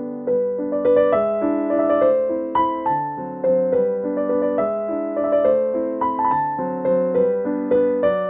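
Background piano music: a calm melody of struck notes that fade, played over held chords.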